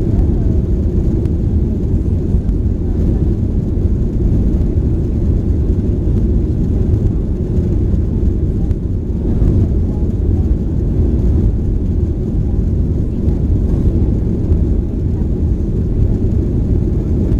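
Steady low rumble of a Boeing 737-900's CFM56 engines and airflow heard from inside the passenger cabin, holding an even level with no rise or fall in pitch.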